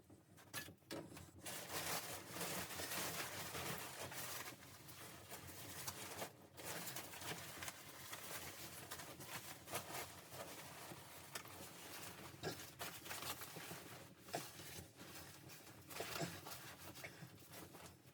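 Close rustling with scattered clicks and taps, irregular throughout, briefly dropping away about six seconds in.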